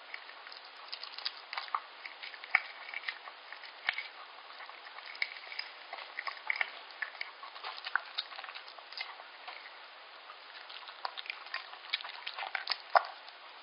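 Yorkshire terrier eating soft liver pâté from a stainless steel bowl: close, irregular wet chewing, licking and smacking clicks, one sharper click near the end.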